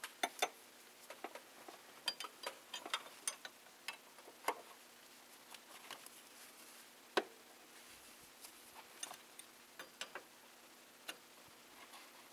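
A metal wrench working a power steering hose fitting: irregular sharp metal clicks and taps as it is fitted on and turned, several close together in the first few seconds, one louder click about seven seconds in.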